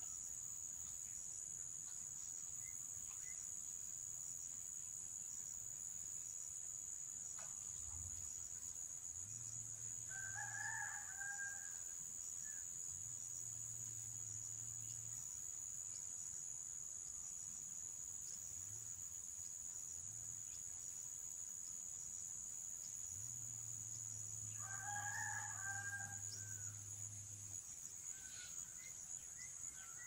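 Steady high-pitched insect drone. A bird calls twice over it, once about ten seconds in and again about twenty-five seconds in, each call lasting about a second.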